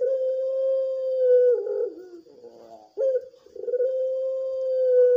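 Puter pelung dove cooing its long call twice: each coo is a long, steady held note that breaks into a wavering, falling tail, the second starting about three seconds in.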